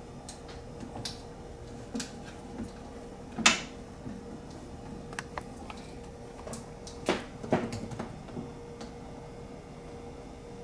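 Plastic clicks and knocks from handling an iHOM portable blender, its blade lid being twisted and unscrewed from the bottle, with one sharp knock about three and a half seconds in and a couple more near seven seconds. A faint steady hum lies underneath.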